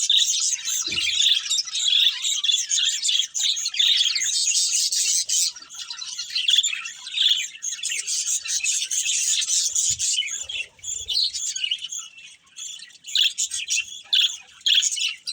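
A pair of budgerigars chirping and chattering in a rapid, continuous warble that thins out somewhat after about ten seconds. A couple of soft thumps are heard under it.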